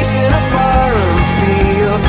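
A song playing as background music, with a melody that slides down in pitch about a second in.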